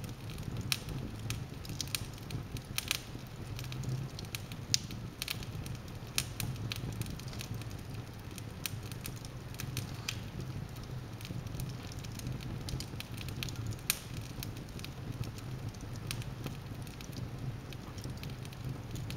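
Wood logs burning in a fireplace, crackling with irregular sharp pops over a low steady rumble, a couple of louder pops standing out about five seconds in and near fourteen seconds.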